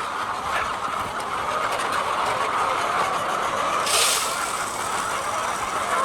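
Steady mechanical running noise, with a brief hiss about four seconds in.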